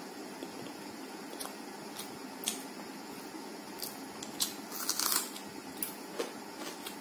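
A person chewing close to the microphone, with sharp crisp crunches from biting raw onion, thickest about five seconds in, over a steady faint hiss.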